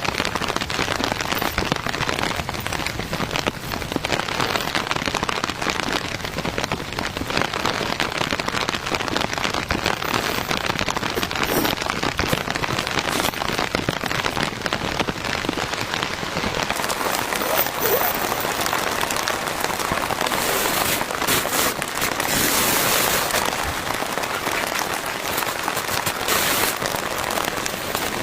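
Heavy rain falling steadily: a dense, even hiss full of individual drop hits, a little brighter in the highs in the second half.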